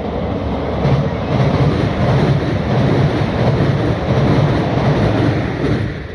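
Train passing close by on the rails, a loud rolling rumble that builds up and then drops off sharply near the end.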